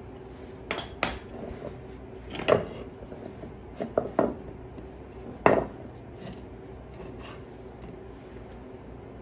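Sharp metal clanks and clinks, about seven in a few clusters, with the loudest two near the middle, as a car's front strut assembly with its coil spring, steering knuckle and upper control arm is handled and turned over on a concrete floor.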